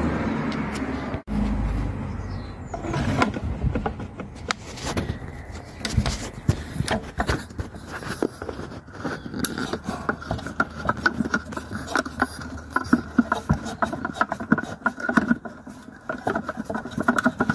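Screwdriver working screws out of a plastic radio casing: irregular clicks and scrapes of metal on screw heads and handled plastic, with a quick run of small clicks in the second half.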